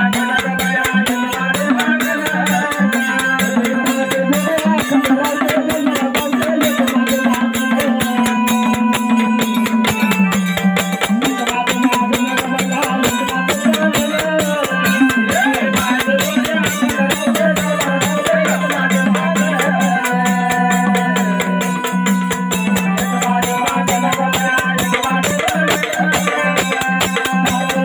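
Live jagaran gondhal folk music: fast, steady percussion with drum and rattling cymbal strokes over a held low drone, with a wavering melody line above. The drone shifts pitch once, about a third of the way in.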